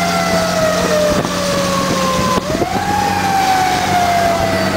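Fire engine's siren sounding on a call, its pitch falling slowly, swooping back up about halfway through, then falling slowly again, over the steady drone of the moving truck.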